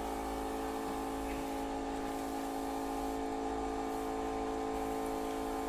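Steady mechanical hum with several fixed pitches, even in level and without a break.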